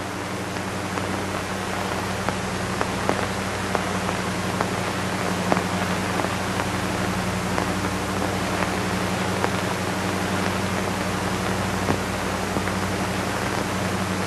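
A steady rain-like hiss with scattered faint clicks, over a low steady hum.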